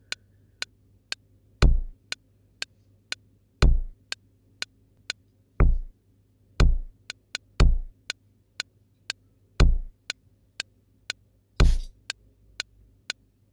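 Sparse electronic drum-machine beat: a deep kick drum with a falling pitch every one to two seconds, sometimes two a second apart, over short sharp ticks about twice a second. Near the end a hissy hit lands together with a kick.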